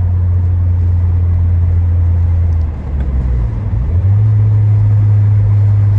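Peugeot 208 GT's 1.6 THP turbocharged engine running steadily and loudly with a low drone. About three seconds in it dips briefly, then comes back slightly higher in pitch.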